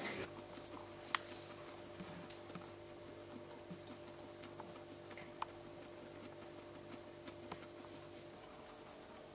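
Faint steady low hum with scattered small clicks and ticks, a few sharper than the rest.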